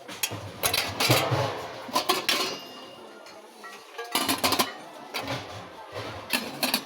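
Background music with sharp, clinking hits, a dozen or so scattered irregularly.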